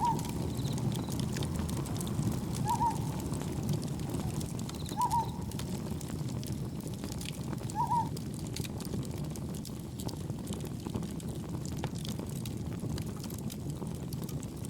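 A steady low rumble of wind and gentle waves under faint campfire crackles. A bird gives a short hooting call four times, about every two and a half to three seconds, in the first half.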